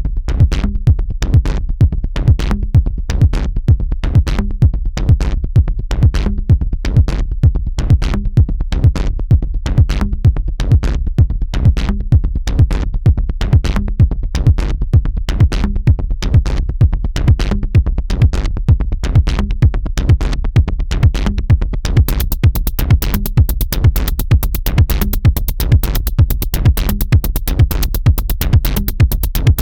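Electronic dance music with a steady drum-machine beat; a bright hi-hat pattern joins about 22 seconds in.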